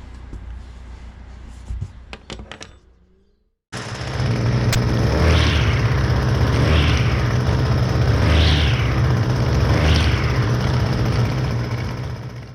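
Gas string trimmer engine running steadily, revved up and back down four times about a second and a half apart, a test of the reassembled trimmer at full throttle. It is preceded by a few handling clicks.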